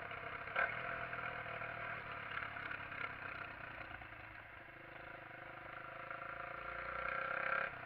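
125 cc motorcycle engine, a SYM XS125-K, running under way. It eases off to its quietest about halfway through, then builds steadily as the bike accelerates away again. There is a brief knock about half a second in.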